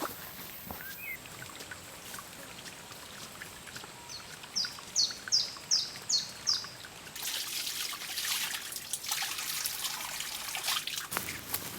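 A songbird sings a run of about seven short, high, falling notes, evenly spaced, a few seconds in, over water trickling. A louder hissing noise with small crackles follows for a few seconds before the end.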